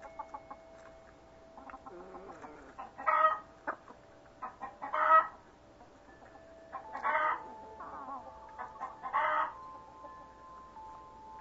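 Backyard chickens calling: four loud calls about two seconds apart, with quieter clucks between them.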